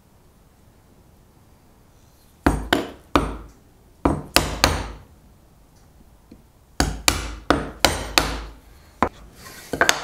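Mallet striking a chisel to chop out dovetail waste in a softwood board: sharp blows in quick groups of three, three and six. A single knock and a short wooden clatter follow near the end as the pieces are handled.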